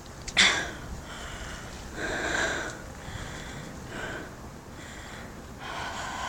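A person sniffing and breathing hard while climbing: a sharp sniff about half a second in, then a few breathy exhalations.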